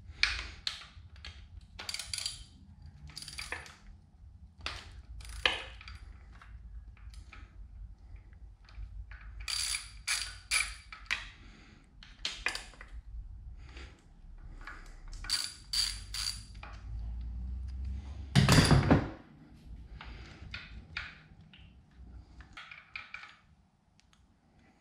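Hand socket ratchet clicking in short runs as a nut or bolt is worked, with a louder clunk lasting under a second about eighteen seconds in.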